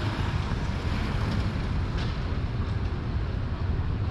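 City street ambience: a steady rumble and hiss of traffic and passers-by, with wind buffeting the microphone.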